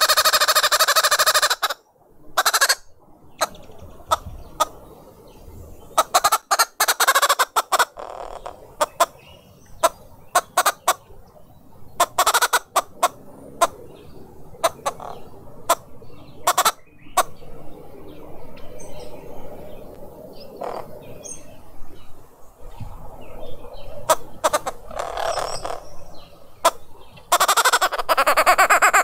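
A group of green wood hoopoes cackling loudly together for about the first two seconds, then again near the end. In between come many sharp taps and knocks and a few quieter calls.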